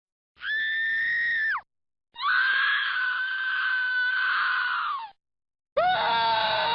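Screaming sound effects: a short high scream of about a second, a pause, then a longer held high scream of about three seconds that drops off at its end. Near the end a lower, wavering cry begins.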